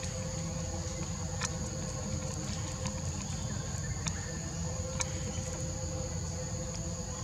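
Insects droning steadily in a high, even tone over a low rumble, with a few sharp clicks.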